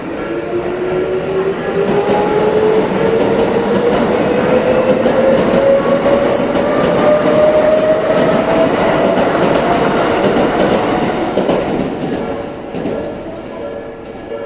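Tobu 70000-series electric train passing, with wheel-and-rail noise and a motor whine that rises steadily in pitch as the train gathers speed, loudest for about ten seconds. As the train noise fades near the end, the level-crossing warning bell is heard ringing.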